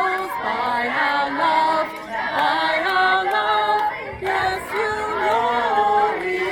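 Group of voices singing together unaccompanied, a slow melody with held notes.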